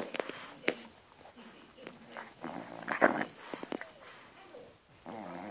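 French bulldog snoring: rasping snore breaths about every two and a half seconds.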